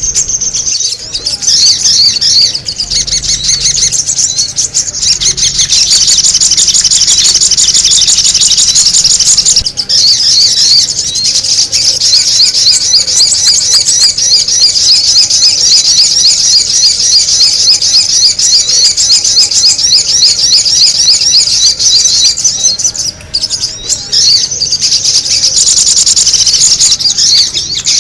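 Sogon bird song used as a bird lure: a loud, fast, unbroken chatter of high chirps. It drops out briefly about ten seconds in and again a few seconds before the end.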